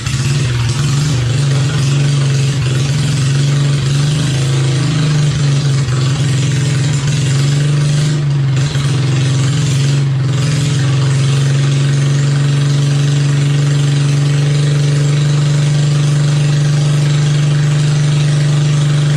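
Small red Honda gasoline engine running just after a cold start on choke. It runs unevenly for the first several seconds, then settles into a steady run.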